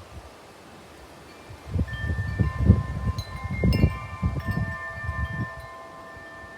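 Wind chime ringing, with several long metallic tones sounding together and a few fresh strikes partway through. A gust of wind buffets the microphone with a low rumble from a couple of seconds in until past five seconds, louder than the chime.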